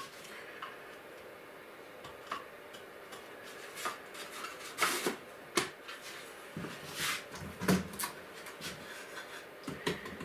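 Objects being handled and fitted into an aluminium case: scattered rubbing, rustling and light knocks and clicks. The louder ones come about halfway through and again a couple of seconds later.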